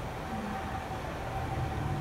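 Steady drone of factory machinery, a constant rushing hum with one steady high whine running through it; the low hum grows a little stronger about one and a half seconds in.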